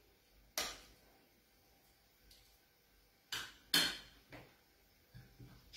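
A spoon knocking against the bowl while scooping tuna and mayonnaise filling into hollowed tomatoes: a sharp clink about half a second in, two more close together around three and a half seconds in, then a few faint taps.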